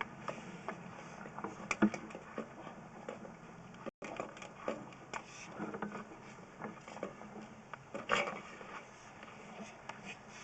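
Irregular clicks, knocks and scrapes from a sewer inspection camera's push rod being fed through a cleanout into the drain pipe, over a faint steady hum.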